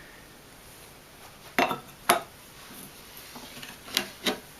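Steel parts clinking and knocking as they are handled: four short, sharp metallic clinks, two about a second and a half in and two more near the end.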